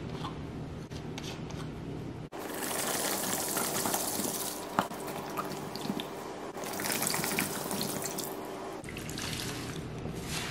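A bottle cap twisted open with faint plastic clicks, then, from about two seconds in, liquid cleaner poured steadily from a plastic bottle onto large sponges in a plastic tub, splashing and fizzing as it foams. It quietens near the end as a soaked, foamy sponge is squeezed.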